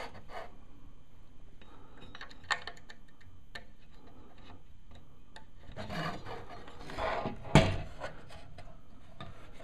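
Handling noise from a TV power-supply circuit board being worked on a wooden tabletop: rubbing and scattered light clicks, with one sharper knock about seven and a half seconds in.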